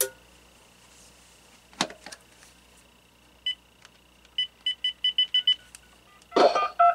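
Uniden 900 MHz cordless phone handset beeping as a number is keyed in: one short high beep, then a quick run of seven more about a second later. A click comes as the handset is lifted, and there is a louder clatter with brief tones near the end as it is set down.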